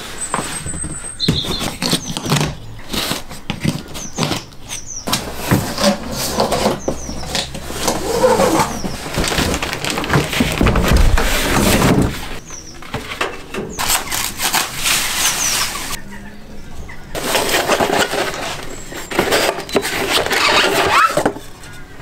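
Cardboard bike box being handled and unpacked: cardboard knocking, scraping and rubbing, bursts of packaging rustle, and short high squeaks of material rubbing together.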